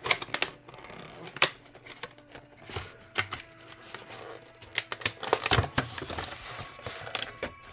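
A cardboard collection box and its plastic-wrapped packaging being handled and opened by hand: an irregular run of sharp clicks and taps with scratchy rustling in between.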